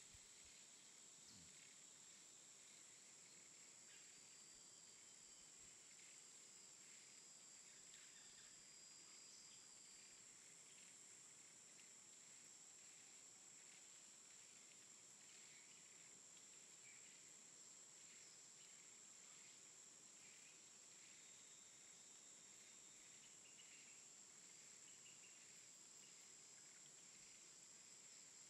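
Near silence: a faint steady hiss with a thin high-pitched whine.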